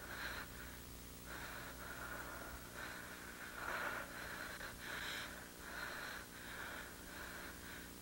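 A woman breathing heavily and raggedly through an open mouth, in irregular breaths, the strongest about four seconds in.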